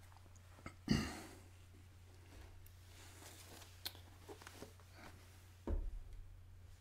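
Quiet small room with a steady low electrical hum, broken by a soft thump about a second in, a sharp click near the middle and another thump near the end, as a person shifts about and settles in.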